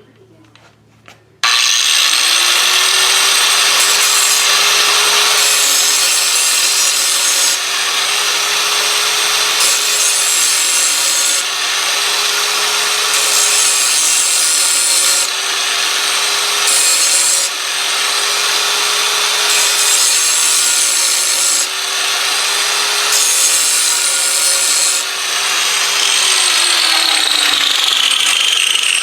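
A power grinder sharpening steel mower blades. The motor whine comes up to speed about a second and a half in and holds steady under a gritty grinding noise that swells and eases as the blade is worked against the wheel, then the whine winds down near the end.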